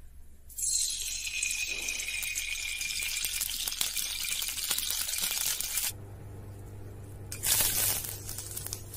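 Cooking oil poured into a hot metal wok, hissing and sizzling as it hits the pan, with a slowly falling tone over the hiss. About seven and a half seconds in, bay leaves go into the hot oil with a short, louder burst of sizzling.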